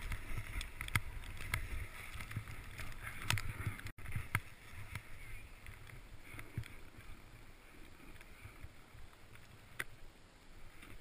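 Skis sliding and swishing through soft snow, with scattered sharp clicks and knocks. It is loudest in the first few seconds, cuts out briefly about four seconds in, then goes on as a fainter hiss that tapers off toward the end.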